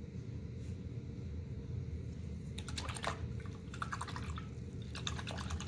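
A paintbrush is rinsed in a water jar: quick clicks, taps and splashes of the brush against the jar start about two and a half seconds in, over a steady low hum.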